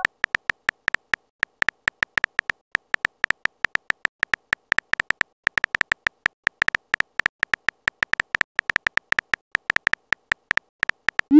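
Simulated phone-keyboard typing clicks from a texting-story app: rapid, uneven taps, about seven a second, each a short tick at much the same pitch. Right at the end a rising swoosh begins as the message is sent.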